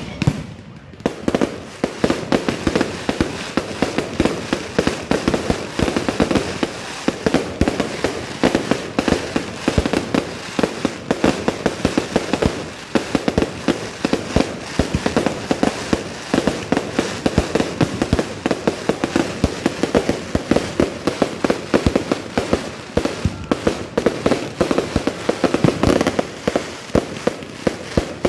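Fireworks display going off in a dense, continuous barrage of bangs and crackles, several a second, starting about a second in.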